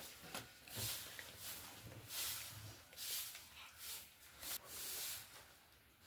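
Plastic packaging rustling and crinkling as it is handled and opened, in about seven or eight short irregular swishes.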